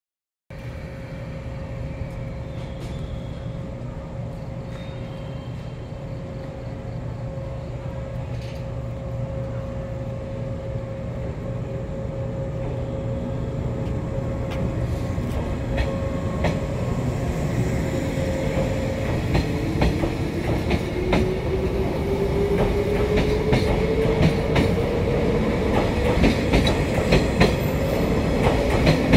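381 series electric limited express train pulling away from the platform: a low rumble that grows steadily louder as it gathers speed. From about halfway the clatter of wheels over rail joints comes quicker and quicker, and a rising whine joins in over the last several seconds.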